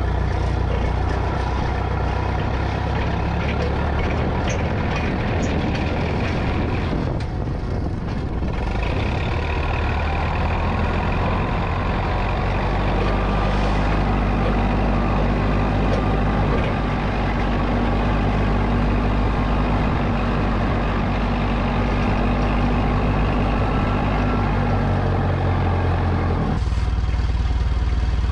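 Engine of an old forklift running as it is driven, steady and loud, with a brief dip about eight seconds in and a change in its note near the end.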